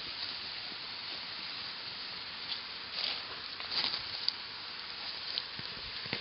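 Dogs digging in loose soil: a steady hissing scratch of paws raking and flinging dirt, with a few sharper scrapes in the second half.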